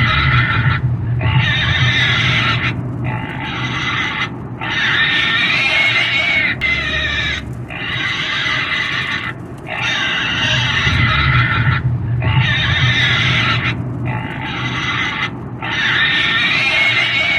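Pig squealing, a run of about nine long, shrill screams, each one to two seconds long, with short breaks between them.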